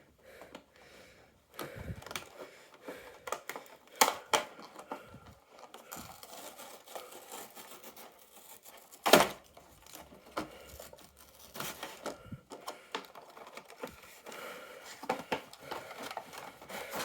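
A Hot Wheels 5-pack's packaging being handled and opened by hand. Irregular rustles and clicks, with a sharp snap about nine seconds in.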